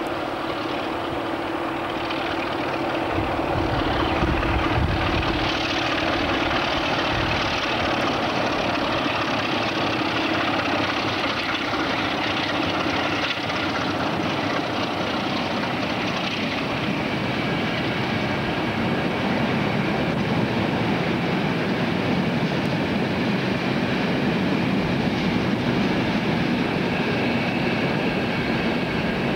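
A pair of diesel locomotives hauling a train of ballast hopper wagons past. The engine drone swells over the first few seconds as the locomotives come close, then gives way to the steady rumble and rattle of the wagons rolling by.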